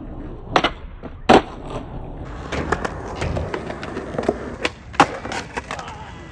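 Skateboard being ollied off a concrete curb: sharp clacks of the board's tail popping and the wheels slapping back down, over the rumble of wheels rolling on concrete. The two loudest hits come about half a second and a second in, and more clacks follow through the second half.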